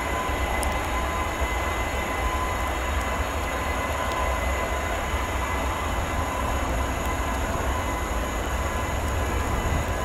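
Airbus A300 freighter's jet engines at taxi power: a steady distant rumble and hiss with a steady high whine.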